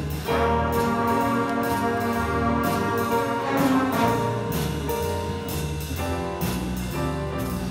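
Student jazz band playing: saxophones and brass holding chords over piano, with percussion keeping a steady beat.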